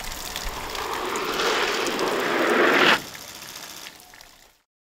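Skis sliding down a ski jump's inrun, a hiss that grows louder for about three seconds and stops abruptly as the jumper leaves the takeoff. A fainter sound lingers briefly before it all fades out.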